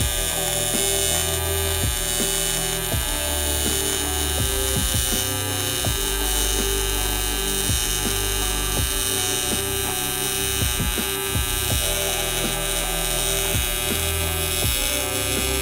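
AC TIG welding arc on aluminum buzzing steadily, with short ticks every half second to a second as filler rod is dabbed into the puddle.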